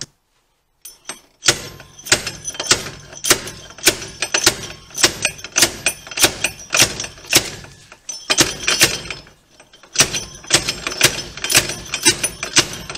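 Improvised slide hammer on a car's rear wheel hub, its sliding weight slamming against the stop in repeated sharp metal-on-metal clanks with a ringing edge, about two a second, pausing briefly about two-thirds through and then coming faster. The seized rear hub and bearing is being hammered loose and is not yet giving way.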